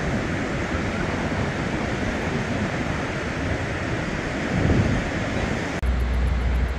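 Surf washing onto a beach with wind, a steady hiss of breaking waves. About a second before the end it cuts abruptly to a heavier low rumble of wind buffeting the microphone.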